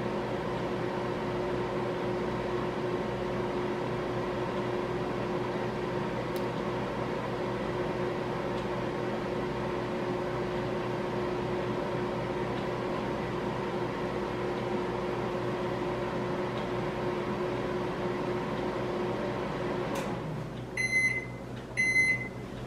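Microwave oven running with a steady hum. It shuts off about twenty seconds in, and two short beeps follow to signal the end of the cooking cycle.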